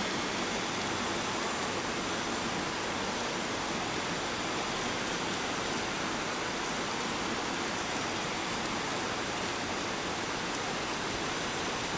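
Steady, even background hiss with nothing standing out from it.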